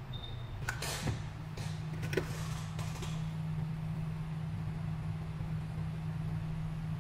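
A steady low machine hum sets in about a second in. A short high beep sounds at the very start, and a few clicks and scrapes come in the first three seconds.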